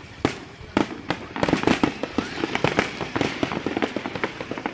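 Aerial fireworks bursting: a couple of single sharp bangs, then a fast crackling barrage of many reports for about two seconds that thins out near the end.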